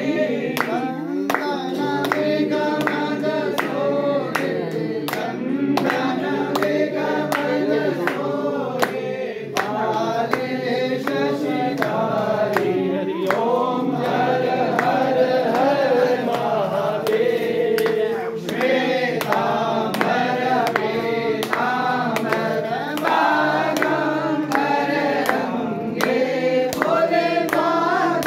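A group of voices singing a Hindu aarti hymn to Lord Shiva, over a steady beat of sharp strokes about twice a second.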